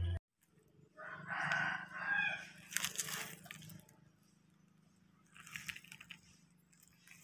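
A rooster crowing once, starting about a second in and lasting about a second and a half, followed by a brief rustling noise.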